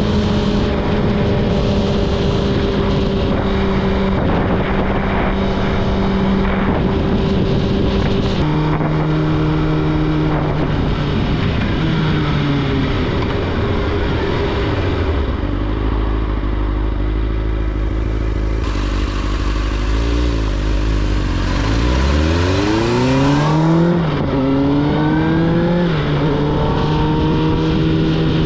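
2005 Suzuki GSX-R 600's inline-four engine under way: steady revs, a drop in pitch at a gear change about 8 s in, then slowing down and idling low for several seconds. It then revs up hard, with two quick upshifts, and settles at steady revs, over a steady rush of wind.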